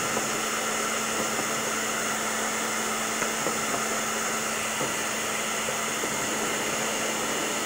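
Hand-held hair dryer running steadily on its low, hot setting: an even rush of blown air over a steady low motor hum.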